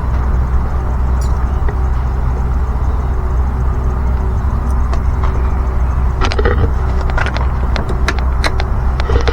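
Steady low rumble under a scatter of sharp clicks and taps from small lock parts being handled and fitted to the door, mostly in the second half.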